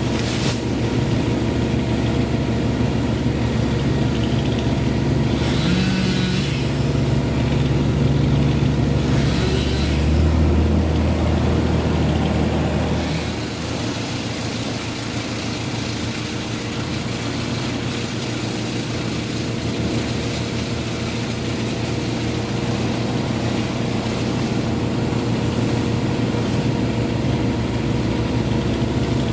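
A large engine running steadily, its note and load dropping a little about thirteen seconds in.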